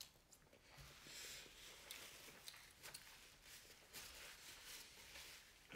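Faint chewing of a mouthful of cheeseburger, with small soft mouth sounds scattered through it.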